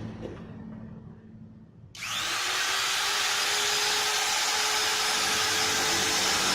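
Ryu RTR 6 wood trimmer (palm router, 440 W, 30,000 rpm) switched on about two seconds in, spinning up quickly and then running steadily with no load: a high, even whine that is not too noisy.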